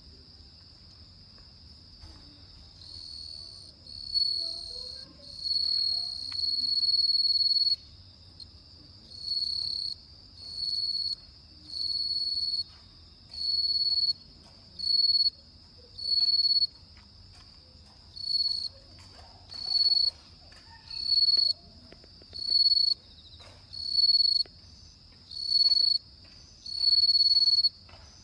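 Japanese bell cricket (suzumushi) singing: a high, ringing chirp repeated in short phrases about every second and a half, starting about three seconds in. A faint steady high-pitched ring runs underneath throughout.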